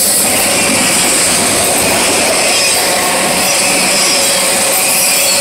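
Freight train of autorack cars passing close by at speed: the loud, steady rush and rumble of steel wheels on rail, with a thin high wheel squeal over it.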